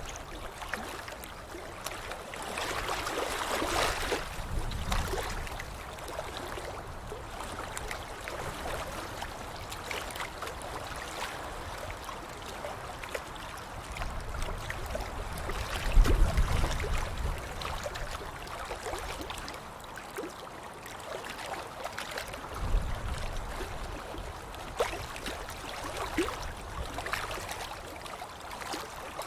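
Water splashing and sloshing continuously, with louder stretches about three to five seconds in and heavy splashes carrying a low thud about 16 and 22 seconds in.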